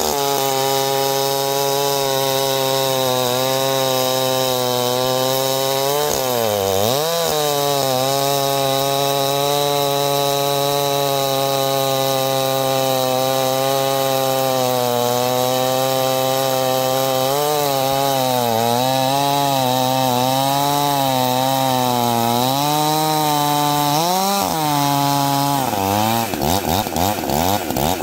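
Husqvarna 390 XP two-stroke chainsaw cutting through a large log under load, its engine speed dipping and recovering several times as it bogs in the cut. Near the end the engine note breaks up and shifts quickly as the bar comes through the bottom of the log.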